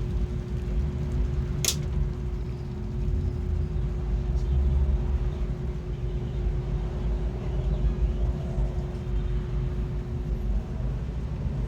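Steady low rumble with a constant hum, and a single sharp click about two seconds in.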